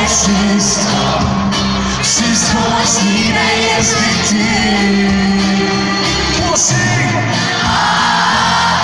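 Live pop band playing through a concert PA, with electric guitars, drums and a lead singer, and fans in the crowd shouting along.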